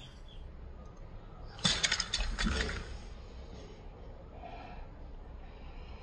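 A burst of rapid, sharp clinking clicks lasting about a second, starting about a second and a half in, over a low steady background.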